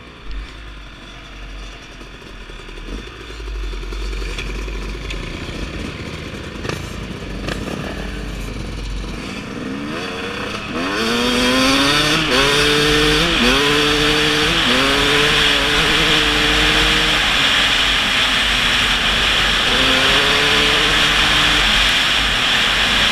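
Yamaha YZ250 two-stroke dirt bike engine running at low speed, then accelerating hard about halfway through, the revs climbing in several steps through upshifts before holding steady at speed. Wind rushes over the microphone once the bike is moving fast.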